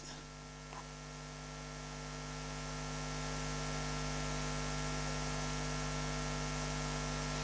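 Steady electrical mains hum with hiss from the sound system, growing slightly louder over the first few seconds and then holding level.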